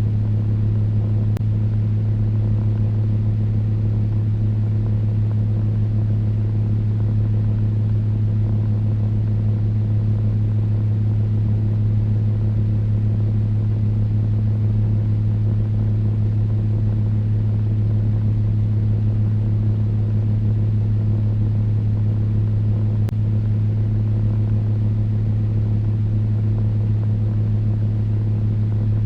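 Electric fan running steadily: a low motor hum with a fainter second tone above it, over an even rush of air.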